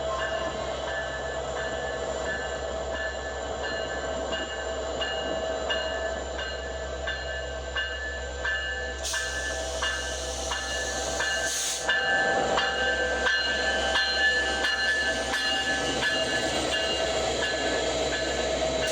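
Metra SD70MACH diesel-electric locomotive and its train rolling slowly: a steady engine drone with a few steady higher tones, and regular clicking about twice a second. A hiss comes in about halfway through and lasts some three seconds.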